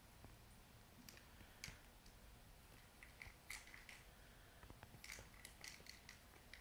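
Faint, irregular clicks and rattles from a plastic treat-ball toy as a cat paws it across carpet, with dry cat treats tumbling inside it. Some clicks come in small clusters.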